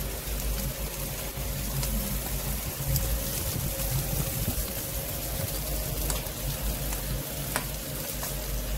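Salmon fillets sizzling on a grill over open flame, with fat dripping from the fish flaring the fire up: a steady hiss and crackle over a low rumble, with a few sharp pops.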